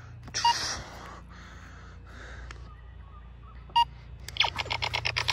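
Laser X toy laser-tag blaster's electronic sound effects: a short beep about half a second in and another a little before four seconds, then a fast string of electronic pulses with a falling zap near the end. Soft breathing comes between them.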